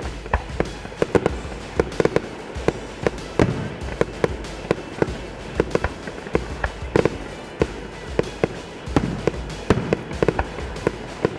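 Fireworks display bursting in a rapid, irregular series of sharp bangs, several a second, with music playing underneath.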